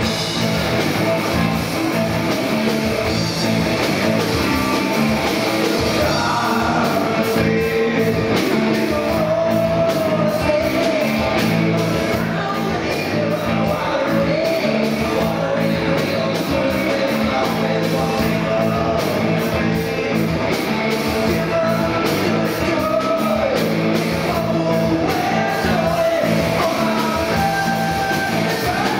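Live rock band playing loud and steady, with electric guitar and bass guitar in the mix.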